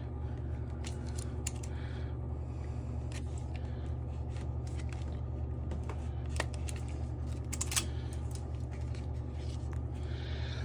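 Zip-tie packaging being cut and pulled off the rear hub of an e-bike: scattered clicks, snips and scrapes as a foam protector comes free, over a steady low hum.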